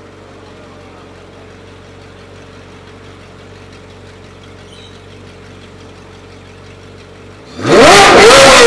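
Ferrari 458 Italia's flat-plane V8 idling steadily through a Fi Exhaust catless valvetronic exhaust with the valves open. Near the end it suddenly revs hard to high rpm and holds there, the pitch wavering up and down.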